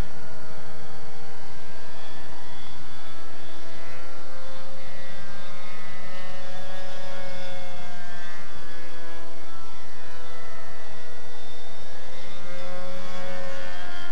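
SuperTigre .90 two-stroke glow engine of a radio-controlled model plane running in flight, a steady buzzing note whose pitch slowly rises and falls several times.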